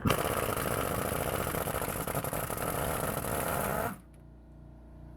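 Power tool running hard for about four seconds, spinning a loosened hub-to-knuckle bolt out through a universal joint, then stopping abruptly.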